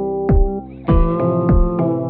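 Background music: sustained synthesizer and electric-piano chords over a steady low beat of about three thumps a second.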